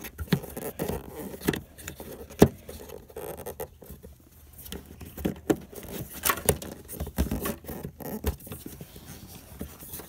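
Hands fumbling a GMC/Chevrolet pickup's retractable under-hood work lamp back into its plastic holder by the battery. Irregular clicks, knocks and scrapes of plastic on plastic come as it is pushed and wiggled into place, with one sharp knock about two and a half seconds in.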